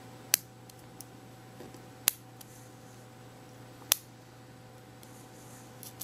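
Small metallic clicks of a short hook working the pins inside a Tri-Circle ZX850 five-pin padlock: three sharp clicks about two seconds apart, with fainter ticks between.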